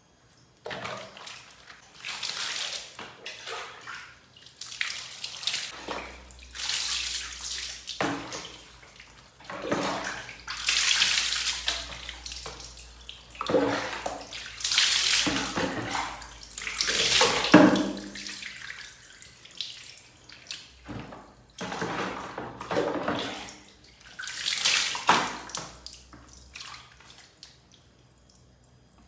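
Water poured from a plastic jug over a cat being rinsed, splashing onto a tiled floor, in repeated pours of a second or two each with short pauses between.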